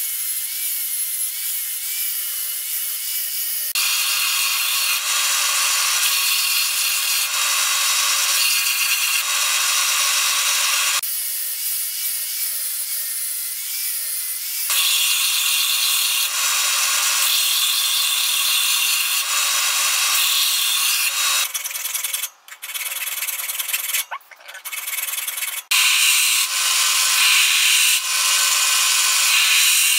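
Angle grinder grinding a san mai Damascus steel blade: the motor's whine alternates with the louder, harsher noise of the disc biting into the steel. About 22 seconds in it stops and starts a few times, and near the end a belt sander runs with the blade held against the belt.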